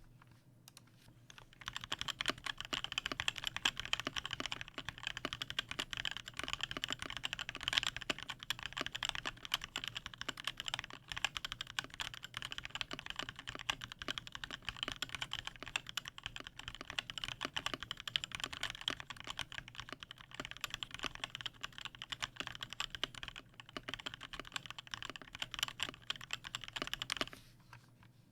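Continuous typing on a custom mechanical keyboard with lubed and filmed Durock Linear L4 switches, an aluminium plate, an acrylic Tofu case and HyperX Pudding keycaps: a dense run of keystroke clacks that starts about two seconds in and stops about a second before the end.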